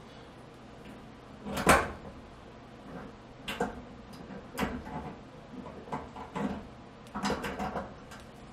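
Small knocks and clicks of metal parts being handled against a stainless steel gas range cooktop: one sharp knock about two seconds in, then a string of lighter taps and clicks.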